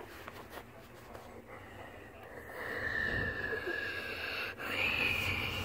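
A person making a jet-engine noise with the mouth: a breathy whine starts about halfway in, sags slightly, breaks off for a moment, then rises in pitch and holds.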